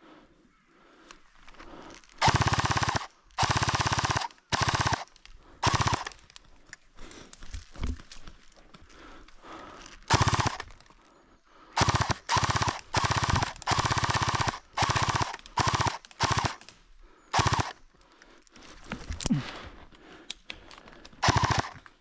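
Airsoft electric gun firing about a dozen short full-auto bursts, each a fraction of a second to about a second long, with the fast rattle and whine of the motor and gearbox cycling.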